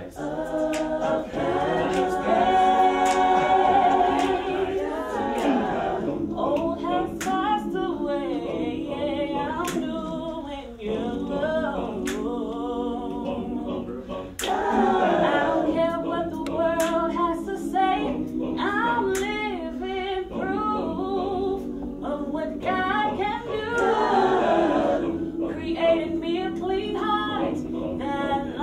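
Mixed youth vocal group singing a gospel song a cappella in close harmony: held chords from the group under a moving lead melody.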